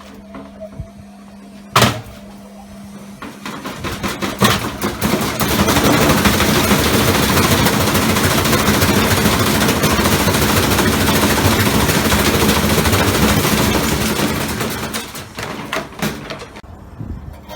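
Washing machine spinning with a heavy object inside its drum, banging and rattling violently. A single sharp bang comes about two seconds in, then a fast, dense hammering builds over a few seconds, holds loud and steady for about ten seconds, and dies away into scattered knocks near the end.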